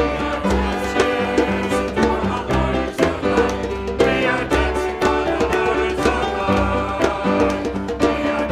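Lively upbeat music with a steady beat, quick repeated notes and a bass line that steps from note to note.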